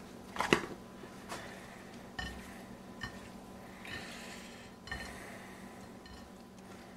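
A hand mixing raw seasoned shrimp in a ceramic bowl: soft wet handling noises and a few light clicks and knocks against the dish.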